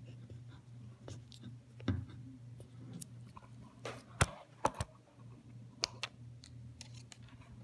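Handling noise: a few sharp clicks and light knocks scattered through, the loudest a quick cluster about four to five seconds in, over a steady low hum.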